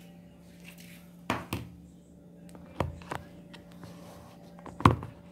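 About five knocks and bumps from a phone being handled and moved, with fingers close to the microphone; the loudest comes near the end. A faint steady hum lies under them.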